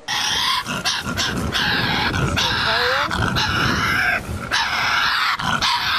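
Tasmanian devil growling and screeching in loud, rasping, near-continuous cries, with a brief break about four seconds in.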